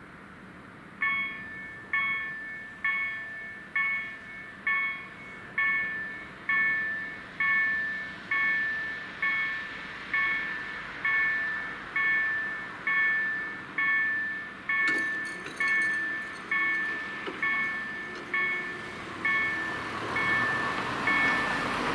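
EDE-1 electronic level-crossing bell starts ringing about a second in, striking a little more than once a second with each stroke fading away, as the crossing's warning cycle begins. At about 15 seconds a low hum joins as the EEG-3 barrier drives start lowering the booms, and a car passes near the end.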